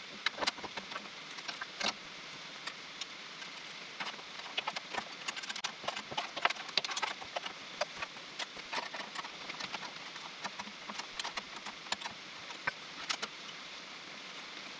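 Irregular light clicks and taps of hand tools fastening bolts on a sawmill log-clamp mount. They come sparsely at first and thicker from about four seconds in, over a steady hiss.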